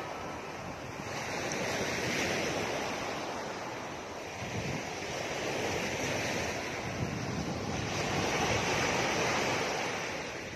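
Small sea waves breaking and washing up a sand beach, the surf swelling and easing every few seconds, with a strong wind blowing on the microphone.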